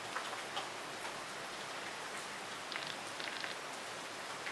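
Rain falling steadily, an even hiss with scattered individual drops ticking on nearby surfaces.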